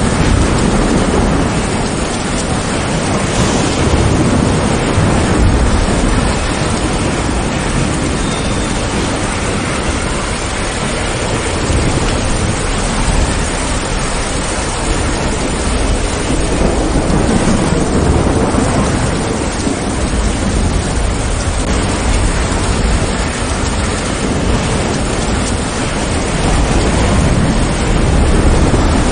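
Heavy, steady rain with low rolling thunder that swells and fades a few times.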